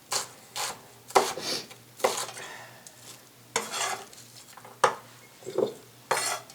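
Sliced red onion being handled and dropped into a glass mason jar: a string of irregular short clinks and rustles.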